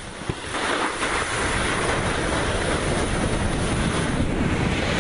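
Steady rushing noise of a snowboard sliding over snow, with wind on the microphone, building up about half a second in.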